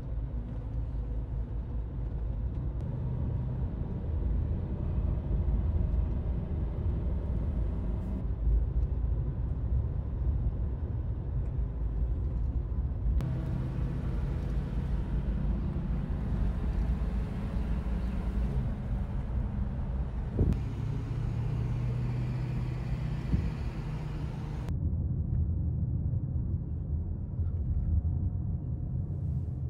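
A classic Mercedes-Benz saloon driving along a road: a steady low rumble of engine and road noise. The sound changes abruptly several times where different takes are cut together.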